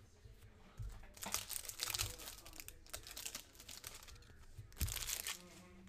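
Foil wrapper of a trading-card pack crinkling and tearing as it is handled and opened, in bursts of crackle that are thickest about a second and a half in and again near the end.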